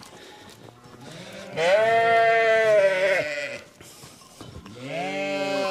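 Sheep bleating: two long bleats, the first about a second and a half in and the second near the end.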